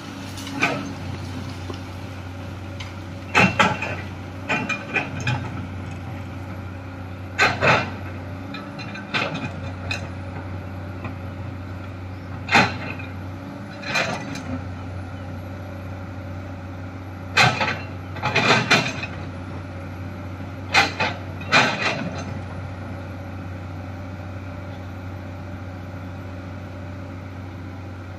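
Komatsu hydraulic excavator's diesel engine running steadily, with a dozen or so sharp knocks, often in twos and threes, as its steel bucket strikes and scrapes rocky earth.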